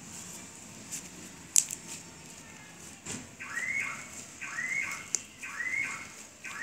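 A sharp click about a second and a half in, then a repeating electronic alarm tone: a note that rises and then holds, sounding about once a second, four times.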